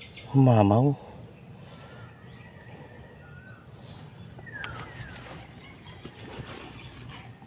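Outdoor ambience: steady pulsing chirring of insects, with a few short, falling bird chirps now and then.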